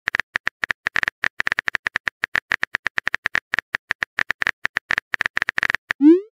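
Rapid, irregular phone-keyboard typing clicks from a texting-story app, several a second, as the next message is typed. Near the end a rising swoop begins: the app's message-sent sound.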